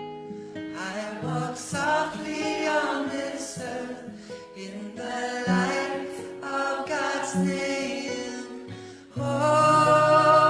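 Gentle devotional song: voices singing in harmony over low held notes, swelling suddenly louder about nine seconds in.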